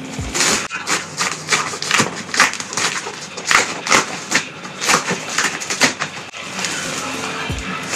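Packaging rustling and crackling in irregular handfuls as a package is opened by hand.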